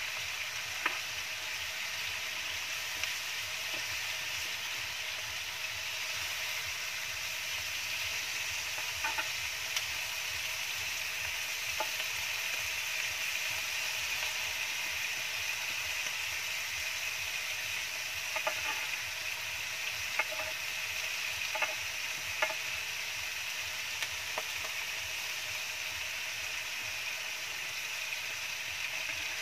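Chicken pieces sizzling steadily in a non-stick grill pan, nearly cooked and browning. Scattered sharp clicks of metal tongs against the pan sound as the pieces are turned.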